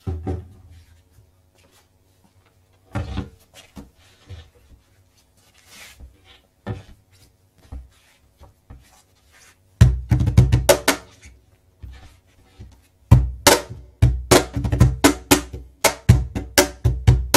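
Traditional Peruvian cajón without snare wires, played by hand. It starts with a few separate strokes, then from about ten seconds in settles into a fast, even rhythm of deep bass tones and sharp slaps.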